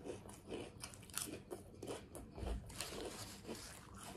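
A person chewing food close to the microphone, with many small, irregular crunches and mouth sounds.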